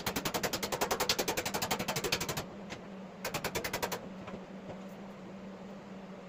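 A rapid mechanical rattle of sharp, evenly spaced strikes, about a dozen a second, in two bursts: one lasting over two seconds, then a shorter one a moment later.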